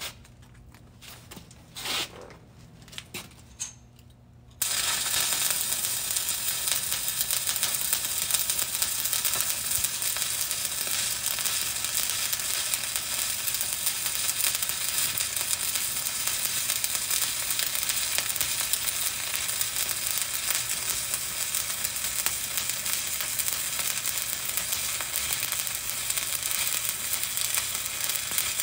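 A few light clicks, then about four and a half seconds in a stick-welding (SMAW) arc strikes and burns with a steady crackling sizzle.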